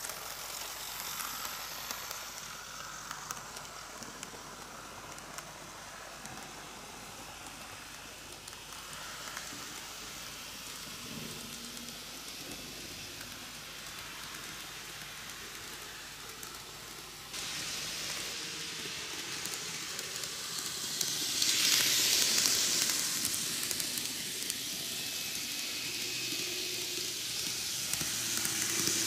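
N-gauge model trains, Shizuoka Railway A3000 and 1000 series, running on TOMIX canted track: a steady hiss of small wheels rolling on the rails with motor noise. It swells as a train passes close, loudest about two-thirds of the way in, and grows again near the end as a train approaches.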